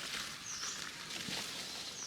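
Steady hiss of rain in a forest, with a short high chirp about half a second in and again near the end.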